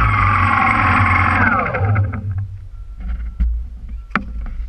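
An engine passing by, its pitch falling as it fades away about two seconds in; after that, wind rumbling on the microphone and a few sharp knocks.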